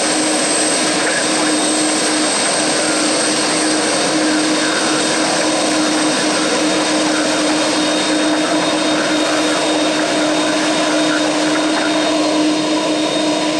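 Jet engines of a FedEx McDonnell Douglas MD-11 freighter running at taxi power as the trijet rolls along the runway. It makes a steady whine with a high whistle over a rushing roar.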